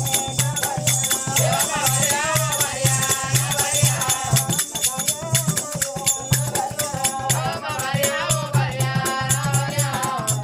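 Oggu katha folk music: a drum beating a steady rhythm under constant jingling of bells and rattles, with a wavering sung melody over it.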